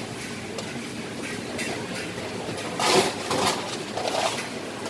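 Coffee pouring in a stream from a metal spout into a cloth coffee sock in a tall steel pot, a steady splashing hiss, with a brief louder noise about three seconds in.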